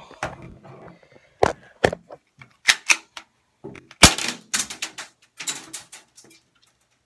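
A run of sharp clicks and clacks from a BB pistol being handled, with the loudest snap about four seconds in as it fires. The gun is double-loaded, so the shot sends two BBs into an iPad screen.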